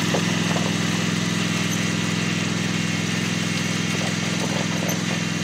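22-horsepower Simplicity Regent lawn tractor engine running steadily at an even speed under load, towing a two-ton car on a strap.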